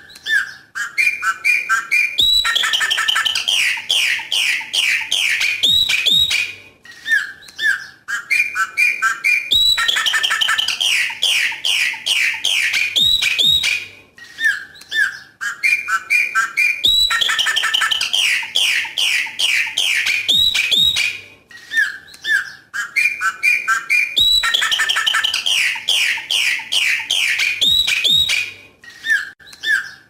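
Chopi blackbird (pássaro preto) singing its 'coqui coqui' song: a few short notes, then a long run of rapid, rich notes. The same phrase repeats about every seven seconds, four times over.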